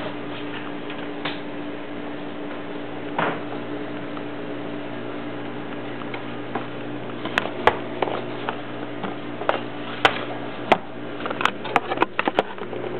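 Steady electric hum of a small countertop oven running while it bakes. From about halfway on come a dozen or so sharp clicks and taps in quick succession.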